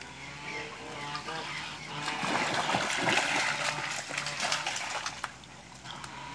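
Ducks splashing in a shallow puddle, one beating its wings in the water; the splashing is loudest in the middle. A few duck quacks come in the first couple of seconds.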